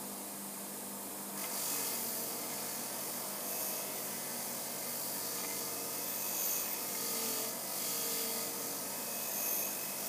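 Disc sander running with a steel axe head held against the spinning disc, grinding the cutting edge: a steady motor sound, with a gritty hiss of abrasive on steel joining in about a second and a half in and holding steady.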